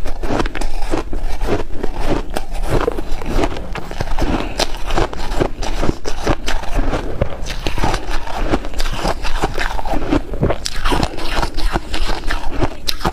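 Shaved ice being chewed close to a clip-on microphone: rapid, continuous crunching in the mouth.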